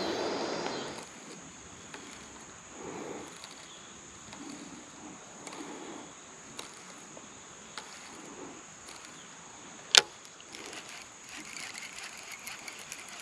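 Quiet riverbank sounds: a steady high-pitched hum, soft rustling or water movements every few seconds, and one sharp click about ten seconds in.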